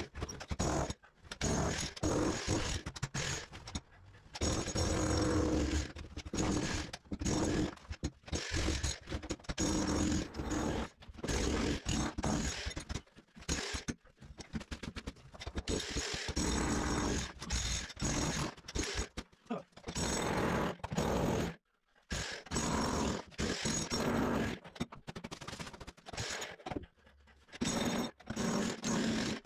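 Corded electric demolition hammer (jackhammer) chiselling into a concrete floor, hammering in runs of a few seconds with short breaks between them; the longest break comes about two-thirds of the way through.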